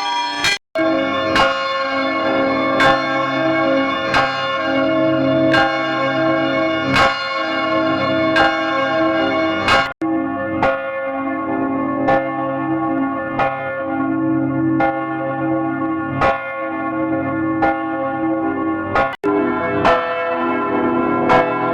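Church bells ringing, struck about every one and a half seconds, each strike ringing on into the next. Three short, sudden gaps break the ringing, about half a second, ten seconds and nineteen seconds in; after the last one the strikes come faster.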